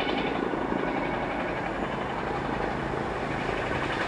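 Class 66 diesel-electric locomotive approaching under power, its two-stroke V12 engine running steadily as it hauls a container freight train.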